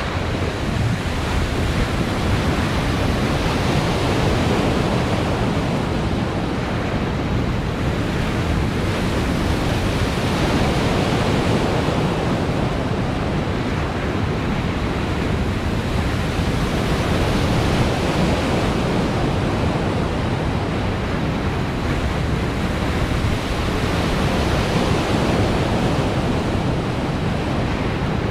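Steady rush of breaking and churning water from an artificial surf wave pool, swelling and easing slightly every several seconds.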